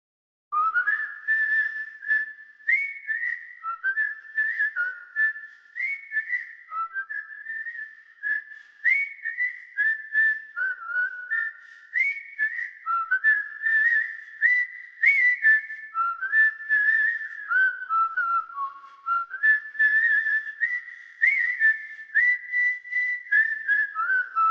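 A tune whistled as a single melodic line of held notes, stepping up and down in pitch, starting about half a second in.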